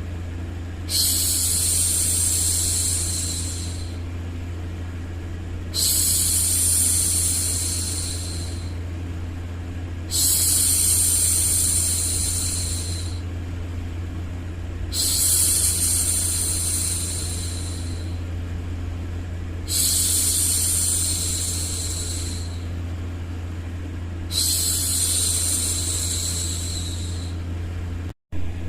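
A woman's long hushing 'shhh', repeated six times at an even pace, each lasting a couple of seconds, over a steady low droning noise. The sound drops out for an instant near the end.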